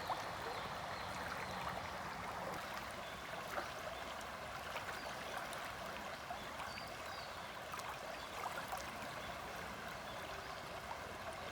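River water flowing steadily over its bed, a continuous babbling rush with many small splashes and trickles.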